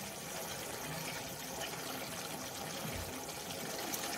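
Chicken liver and kidney pepper masala simmering and sizzling steadily in an open pan as it is stirred with a silicone spatula, the gravy being cooked down dry. A soft low bump about three seconds in.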